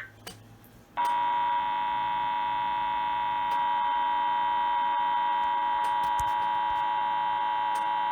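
Emergency Alert System attention signal coming through a TV: a steady, unchanging alarm tone that starts about a second in and holds, the warning tone that comes between the alert's data burst and its spoken flood warning.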